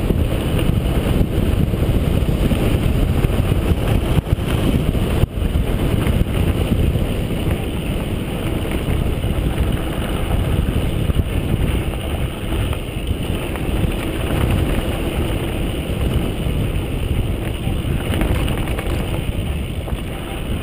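Mountain bike descending a dirt singletrack: tyres rolling over dirt and the bike rattling, under steady wind noise on the microphone. A sharp knock about five seconds in.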